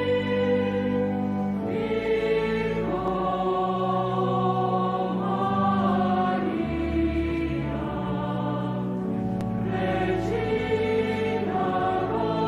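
Choir singing slow sacred music over held chords that change every second or two.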